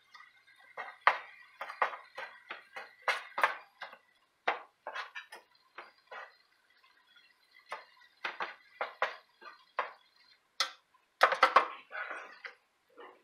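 Black plastic slotted spoon stirring cooked ground turkey in a stainless steel pot, scraping and knocking against the pot in quick irregular strokes with short pauses. The loudest run of strokes comes near the end.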